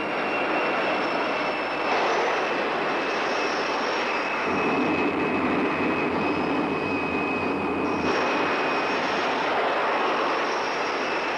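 Fiat G.91's Bristol Siddeley Orpheus turbojet running just after a cartridge start: a loud steady rushing noise with a high-pitched whine over it.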